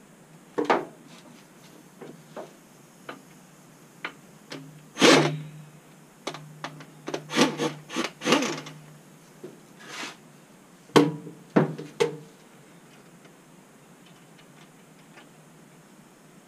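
Scattered metal knocks, clunks and scraping as a piston is worked out of a cylinder bore in a bare 6.4 Hemi engine block. The noises are irregular, a few of them louder clunks, and they die away about three-quarters of the way through.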